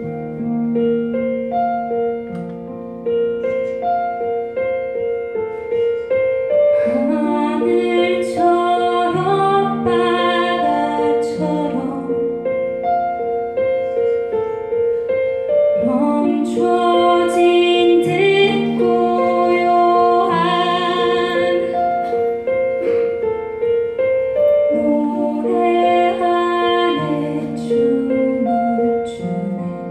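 A woman singing with her own keyboard accompaniment, piano chords held on a Yamaha Motif XF7. The keyboard plays alone at first, then three sung phrases come in, with the keyboard carrying on between them.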